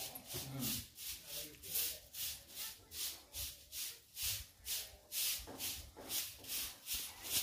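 Soft rhythmic scuffing and rubbing with each step as someone walks across stone paving, an even swish about two to three times a second.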